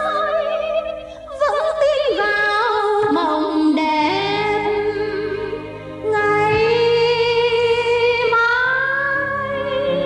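A woman singing a slow Vietnamese ballad over instrumental accompaniment, holding long notes with vibrato, with two short pauses between phrases.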